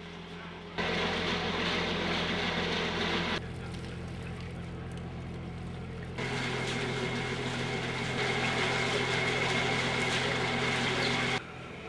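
A boat's engine running steadily at low speed, a low droning hum. Its level jumps up and down abruptly a few times, about a second in, a little past three seconds, past six seconds and near the end.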